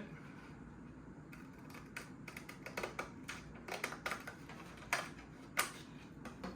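A thin strip of rosewood being cut by hand: a run of light, irregular clicks and scrapes, with two sharper clicks near the end.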